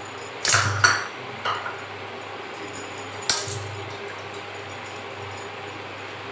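Steel kitchenware clinking: the steel cooking pot and utensils being handled, four clinks in the first three and a half seconds, the sharpest about three seconds in. A steady low hum runs underneath.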